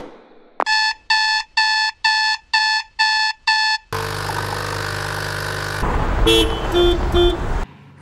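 Digital alarm clock beeping seven times, about two beeps a second. Then a coffee machine running with a steady hum, followed by a louder, noisier stretch with three short electronic tones that cuts off suddenly near the end.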